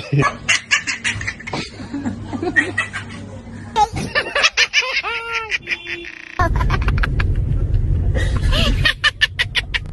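High-pitched laughter in quick giggling pulses, several short laughing clips joined with abrupt cuts about four and six and a half seconds in; the last clip carries a loud low background rumble.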